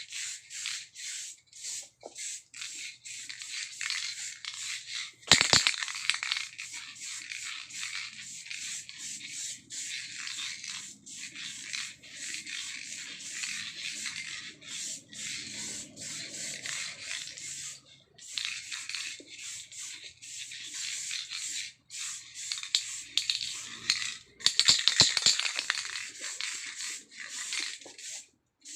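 Aerosol spray-paint can hissing in many short spurts as a coat is sprayed onto a bike frame, with louder clattering about five seconds in and again near the end.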